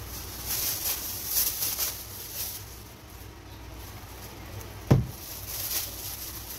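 Thin plastic grocery bags rustling and crinkling as groceries are pulled out, in bursts, with one sharp thump about five seconds in.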